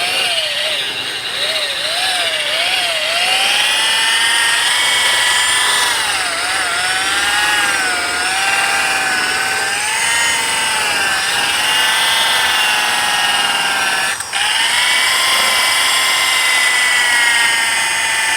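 Variable-speed 7-inch rotary buffer whining as it polishes compound into a plastic headlight lens. Its pitch wavers up and down as the speed and pressure change, rapidly at first and then in slower swells, with a brief drop about three-quarters of the way through.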